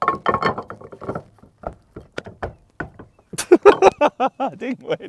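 Metal clicks and knocks of a detachable tow-ball neck being pushed into its receiver under the rear bumper, with the densest clatter in the first second. It fails to lock on the first try. Near the end a man grunts and makes vocal noises with the effort.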